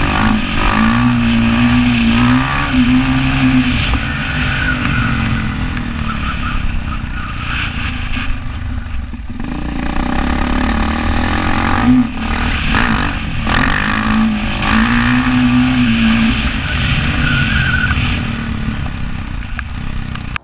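Yamaha YZ450F four-stroke single-cylinder dirt bike engine under riding load, its pitch rising and falling as the throttle opens and closes, with brief drops in sound about nine and twelve seconds in.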